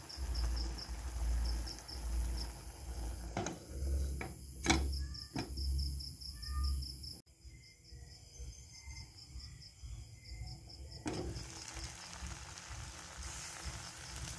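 Crickets chirping in a steady, rapid pulse over an uneven low rumble, with a few sharp clicks near the middle. The low rumble stops abruptly about seven seconds in, leaving fainter chirping.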